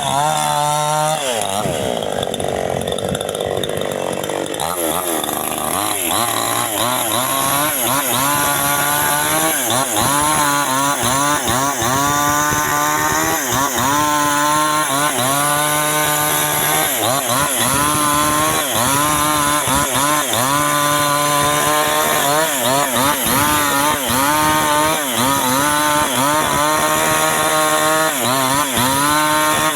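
Chainsaw running through a cut, its engine note rising and dropping again every second or two as the chain bites into the wood, after a lower, steadier stretch in the first few seconds.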